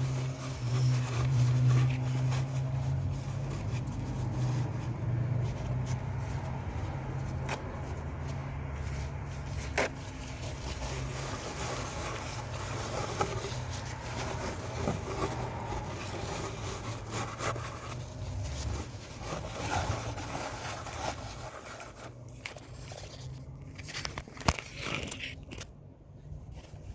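Scattered clicks and scrapes of hand tools working on an engine bay, over a low steady hum that is strongest in the first few seconds and then fades.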